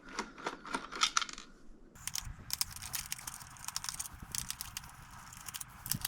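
Screws being backed out of the Shark vacuum's plastic floor-head housing: a run of light clicks, ticks and small rattles of the driver and loose screws against plastic.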